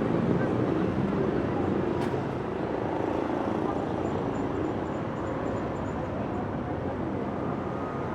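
City street ambience: a steady wash of traffic with indistinct chatter of passers-by and a single sharp click about two seconds in.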